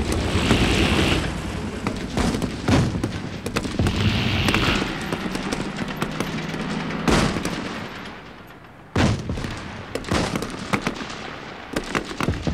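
Battle gunfire from several guns: dense, rapid shots with low booms that thin out around eight seconds in. A single sharp shot comes about nine seconds in, followed by scattered shots.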